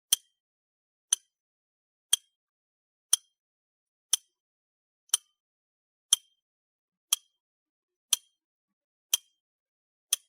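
Clock ticking sound effect, one short sharp tick every second with dead silence between.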